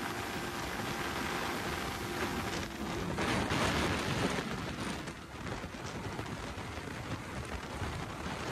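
Motorcycle riding at speed: wind rushing over the microphone with a faint steady engine hum underneath. The rush grows louder for about a second and a half around three seconds in.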